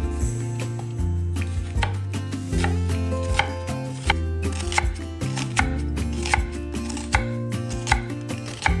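Chef's knife slicing through a peeled onion and knocking on an end-grain wooden cutting board, one crisp cut about every three-quarters of a second, over soft background music.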